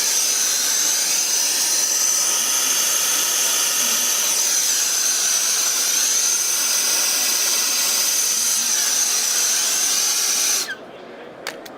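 Gas torch flame hissing steadily with a high whistling tone as it heats a copper pipe coupling for soft soldering. The torch cuts off suddenly near the end, followed by two short clicks.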